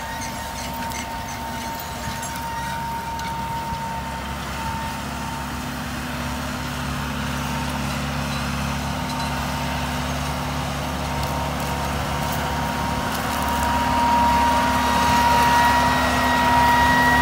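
John Deere farm tractor's diesel engine running steadily under load as it pulls a no-till corn planter, a steady high whine over the engine hum. It grows louder over the last few seconds as the tractor comes closer.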